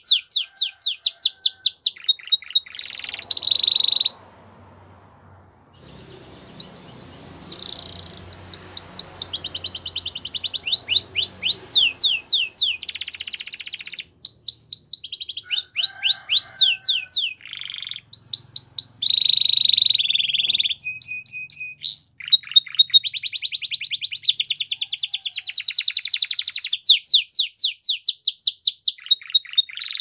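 Male canary singing: long rolls of fast repeated notes that change from phrase to phrase, with a short pause about four seconds in.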